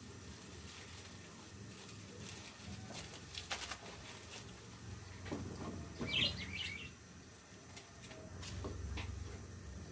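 Low steady rumble of a gas burner under a pot of boiling water, with faint crinkling and clicks of plastic seasoning sachets being handled and torn open, and a short bird chirp about six seconds in.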